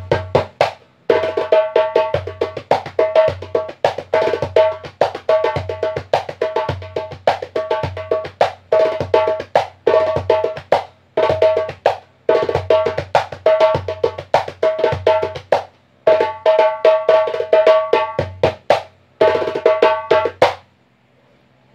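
Size 9 djembe with a synthetic head, played by hand in a fast solo: deep bass strokes mixed with higher ringing strokes in quick repeated phrases with brief breaks. The playing stops near the end.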